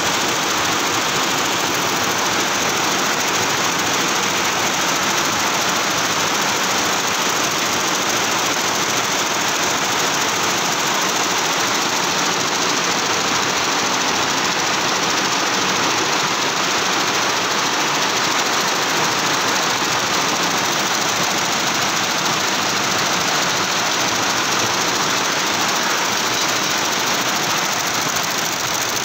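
Multi-head computerised embroidery machine running, its many needle heads stitching together in a steady mechanical drone.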